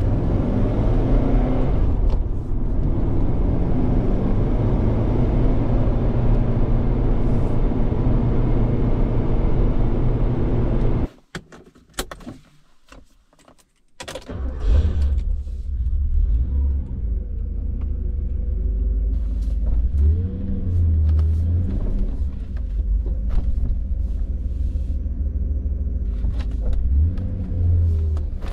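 1985 Porsche 928 S V8 engine running, heard from inside the cabin as a steady low rumble. About halfway through it drops out for a few seconds of near quiet with a few clicks, then the engine runs again.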